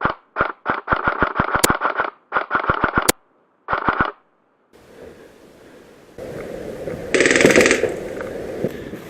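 G&G MP5 SD6 airsoft electric gun firing: a few single shots, then short full-auto strings of about eight shots a second. After a pause comes one short, louder, much faster burst about seven seconds in.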